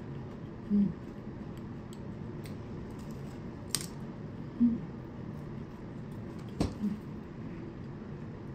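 A metal spoon clinking against a ceramic soup bowl: two sharp clinks a few seconds apart, with a few short, soft, low thuds of tableware handling in between.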